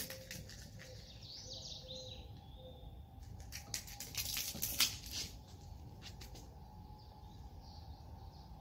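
Small birds chirping in the background, and a run of short scrapes and clicks near the middle, loudest about five seconds in, as a small object is batted across stone paving tiles.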